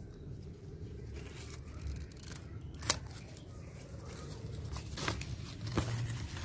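Pruning shears cutting through an avocado seedling's stem. One sharp snip comes about three seconds in, and two fainter clicks follow near the end.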